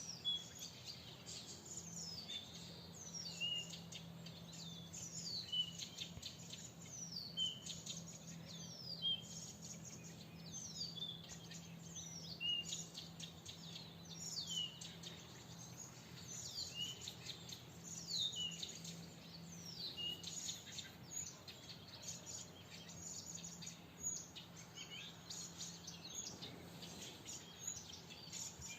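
Wild songbirds singing in a spring forest: a steady run of short, high notes that slide down in pitch, about one a second, over softer twittering from other birds. A faint low hum sits underneath and fades out near the end.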